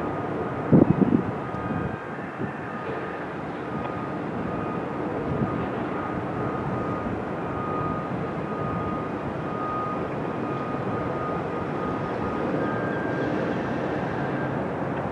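Steady wash of city traffic noise with a faint, high steady tone that shifts higher in pitch near the end, and a sharp knock about a second in.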